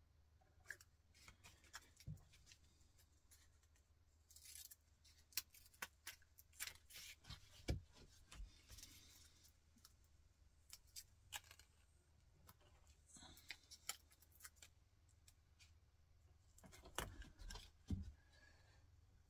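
Faint, scattered clicks and short rustles of small parts and paper being handled and worked by hand, with louder clicks about eight seconds in and near the end.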